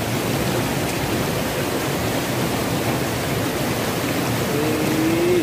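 Swollen, muddy river water rushing fast over and between rocks in a steady, loud rush.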